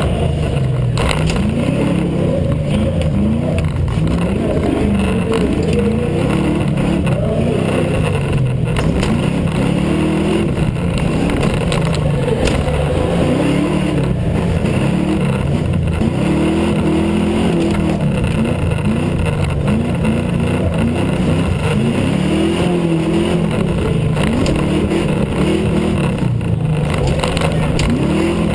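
Truck engine revving up and falling off again and again as it is driven hard through a dirt course, with a few sharp knocks.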